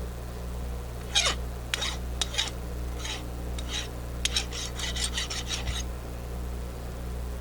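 Hand deburring tool scraping the sharp edges of a freshly milled aluminium part in a string of short strokes, over a steady low hum.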